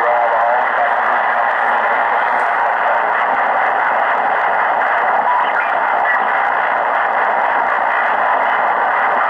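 Tecsun PL-680 shortwave receiver in lower-sideband mode giving steady loud static as it is tuned up the 40-meter amateur band. A garbled, mistuned sideband voice trails off in the first second, and a couple of faint brief whistles come partway through as it passes other signals.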